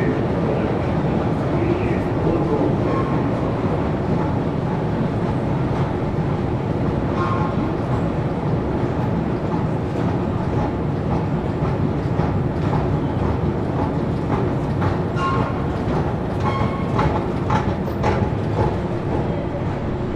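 Moscow Metro train running, heard from inside the carriage: a steady rumble of wheels on rails, with brief squeals here and there and a cluster of sharp clicks a few seconds before the end.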